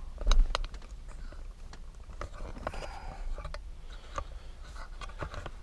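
Scattered soft clicks and rustles of handling inside a car's interior, over a low steady rumble; the loudest click comes just after the start.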